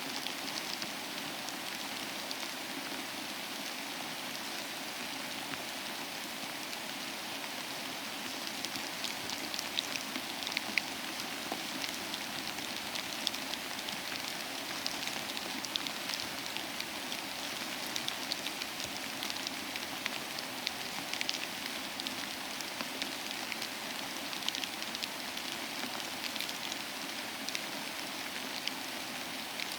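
Steady rain falling on a surface, an even hiss with many individual drops ticking through it.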